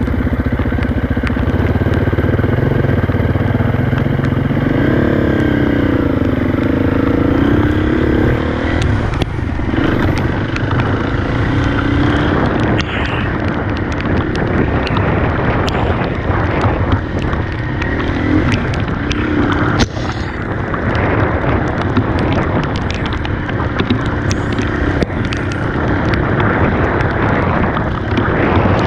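Dirt bike engine running under way, its pitch rising and falling as the throttle is worked, most clearly about five seconds in. Scattered clicks and rattles run throughout.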